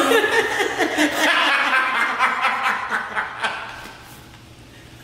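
Several people laughing together, the laughter dying away near the end.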